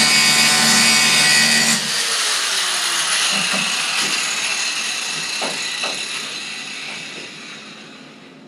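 Angle grinder cutting a 1/4-inch bolt with a loud, steady grinding whine. About two seconds in the cutting stops abruptly and the disc spins down, its whine falling in pitch and fading slowly, with a few light knocks.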